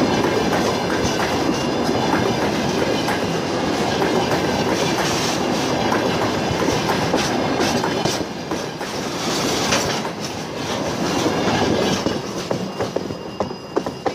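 A train's wheels rolling past at close range, clattering over rail joints with a rapid run of clicks. It eases off near the end as the last car goes by.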